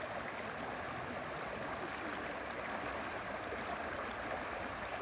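Steady rush of moving river water in a rapid.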